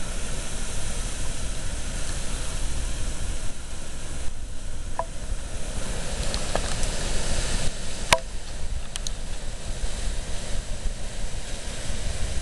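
Strong gusty wind blowing through trees and buffeting the microphone, with a steady hiss of rain. A sharp click about eight seconds in.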